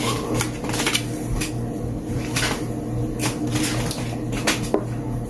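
Irregular sharp clicks and knocks over a steady low hum.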